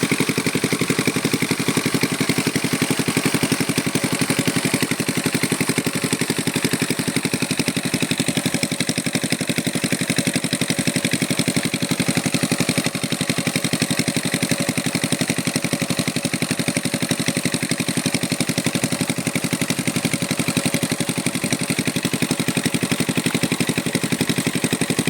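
Engine-driven irrigation water pump running steadily with a fast, even beat, and water flowing.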